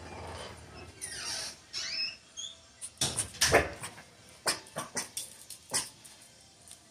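Jug puppies (pug–Jack Russell crosses) playing: a few high, gliding squeaks about a second in, then a run of short, sharp yips and clicks.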